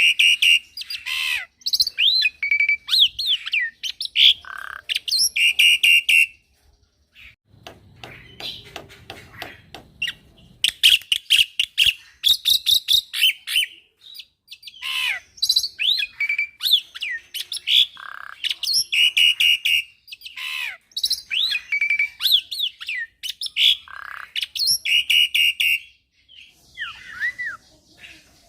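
Young black-winged myna (jalak putih) singing a fast, varied song of chirps, whistled glides and harsh squawky notes, with a quieter stretch of clicking about seven seconds in.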